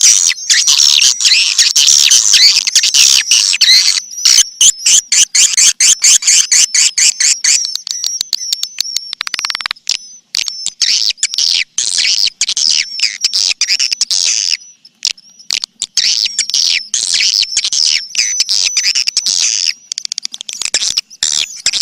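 Recorded swiftlet calls: dense, high-pitched twittering chirps mixed with rapid trains of sharp clicks, thinning out briefly twice. This is a swiftlet calling sound, the kind played to draw swiftlets into a nesting house.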